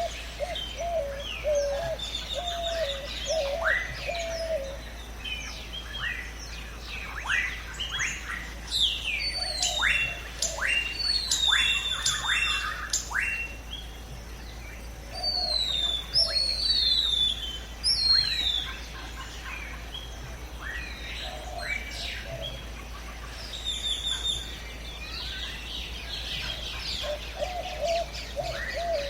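Jungle ambience of many birds calling at once: quick chirps and whistles that fall in pitch, busiest in the middle, with a lower repeated call near the start and again near the end.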